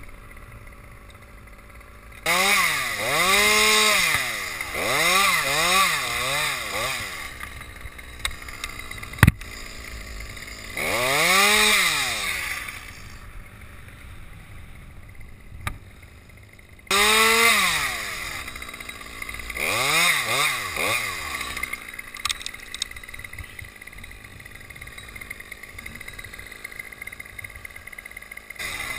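Two-stroke top-handle chainsaw idling, then revved in three loud spells, its pitch climbing and dropping back several times in each. One sharp knock in a lull between spells.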